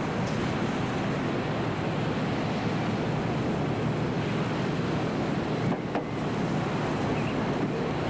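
Steady rumble of a lifeboat launching tractor's engine running, mixed with a hiss of wind and surf, with a brief crackle about six seconds in.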